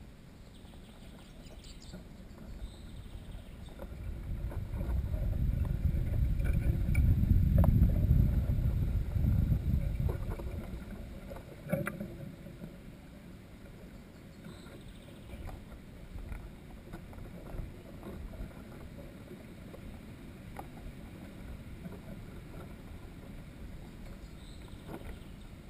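A low rumble swells over a few seconds, peaks, and fades away, with a single sharp click a couple of seconds after it and a few faint high chirps.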